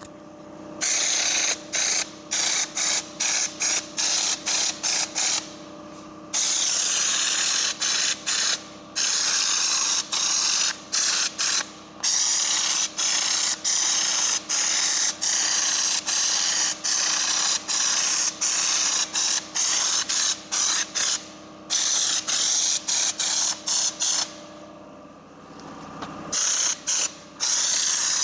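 Compressed-air spray gun applying a textured coating, hissing in many short bursts as the trigger is pulled and let go, with a few longer pauses.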